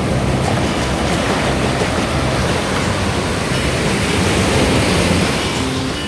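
Ocean surf breaking and washing up a sandy shore in a steady rush of water.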